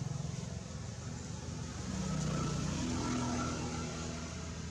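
A motor engine running with a steady low hum, its pitch rising a little about two seconds in.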